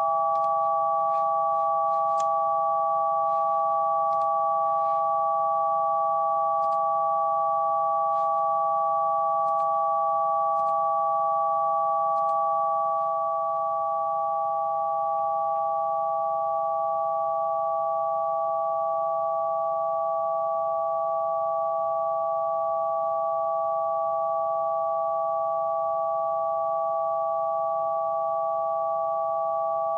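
A steady chord of three pure sine tones, electronically generated, holding the same pitches without a break. They stand for the light-foot wavelength scaled by root 2, root 3 and root 5 and converted to frequencies. The chord gets slightly quieter about 13 seconds in.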